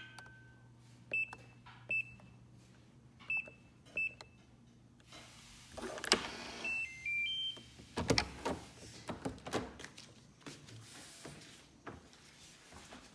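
Electronic door lock: several short single beeps, then a short run of beeps stepping in pitch, followed by a cluster of mechanical clicks and knocks of the lock and door.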